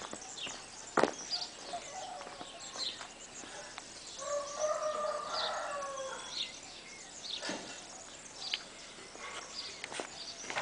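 A rooster crowing once, a call of about two seconds near the middle, with faint high chirps and a few sharp knocks, the loudest about a second in.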